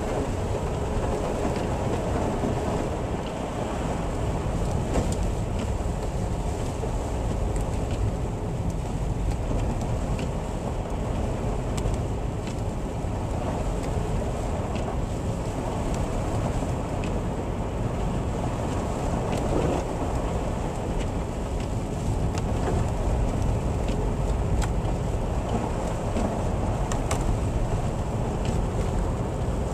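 Steady low rumble of vehicle and road noise, with scattered faint ticks.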